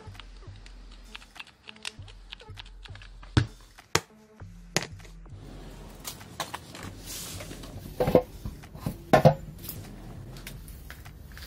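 A string of small clicks and knocks as a cordless impact driver and other tools are handled and set down on a workbench. After that, a paper bag of scrap rustles and clatters while it is rummaged through, with two louder crackling bursts near the end.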